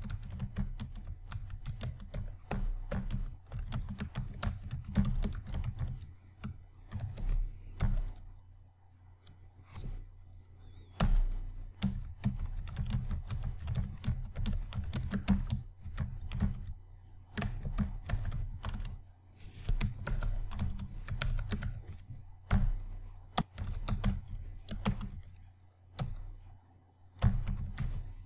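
Typing on a computer keyboard: an uneven run of key clicks with a few short pauses.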